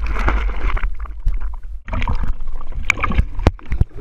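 Pool water splashing and sloshing around a GoPro camera, with a steady low rumble and scattered sharp clicks; it drops quieter for a moment about a second in, then picks up again.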